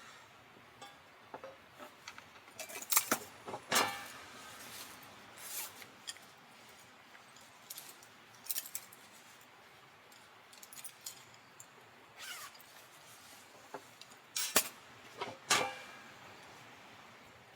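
Metal camping gear being handled: scattered sharp clinks and clatters, loudest in two clusters, a few seconds in and again near the end, over a faint steady background hiss.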